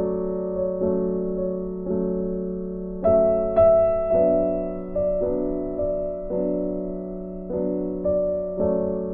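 Background music: a gentle piano piece, soft chords struck about once a second, each fading away.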